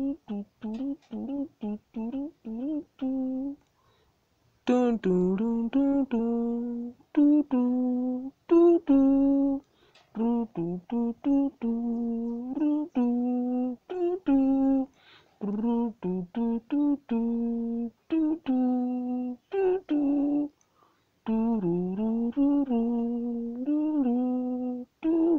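A single unaccompanied voice hums or sings a wordless melody in short syllables and held notes, pausing briefly between phrases.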